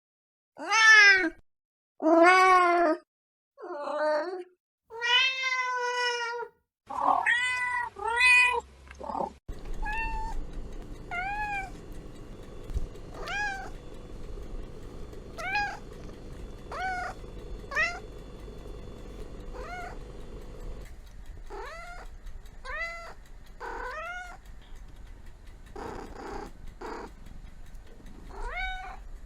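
Domestic cats meowing again and again: loud, drawn-out meows at first, then after about ten seconds shorter, higher-pitched mews over a steady background hum.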